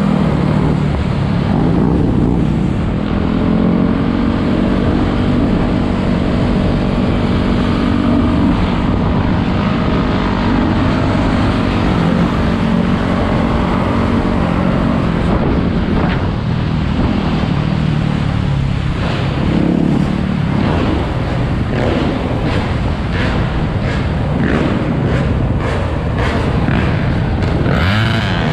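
Sport quad and dirt bike engines running as the group rides, with steady low wind rumble on the microphone. The engine note holds steady through the first half, and the second half brings a string of short sharp pulses.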